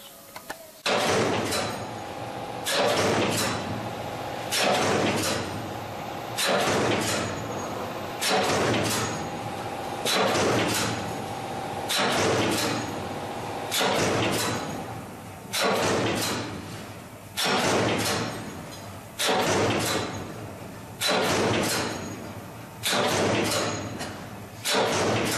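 CNC punching machine cycling automatically, punching holes in steel sheet: a sharp stroke about every second and three-quarters, each followed by a short fading clatter, in a steady rhythm that begins about a second in.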